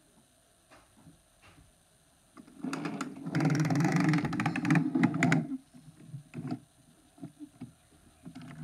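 Small electric motor of a battery-powered toy train engine running for about three seconds in the middle, a steady hum with rapid clattering clicks from its gears and wheels. A few faint clicks of plastic toys being handled come before and after.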